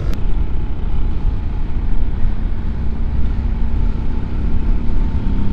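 Wind rushing over the microphone of a camera on a moving motorbike, with the bike's engine and tyre noise running steadily underneath.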